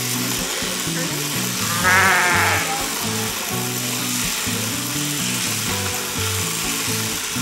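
A sheep bleats once, a short quavering call about two seconds in, over background music.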